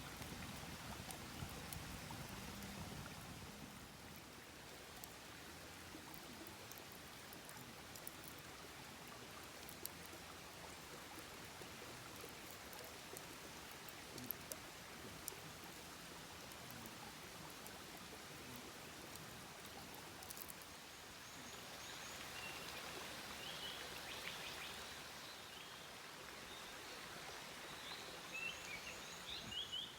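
Steady rushing hiss of a flowing stream at night. Faint chirping calls of small animals come in during the last third, with a few soft clicks scattered through.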